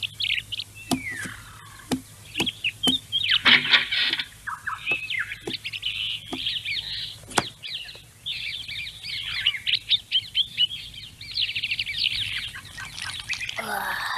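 Small songbirds chirping and twittering in a busy chorus of quick high chirps, with a few sharp clicks scattered among them.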